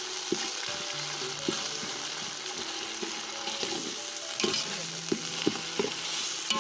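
Sliced onions with ginger-garlic paste sizzling steadily in hot oil and ghee in a metal pot. A steel ladle stirs them and scrapes the pot bottom now and then.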